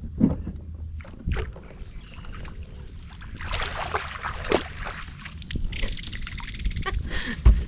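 Water sloshing and dripping around a kayak, with scattered knocks and clicks on the boat and a loud thump near the end.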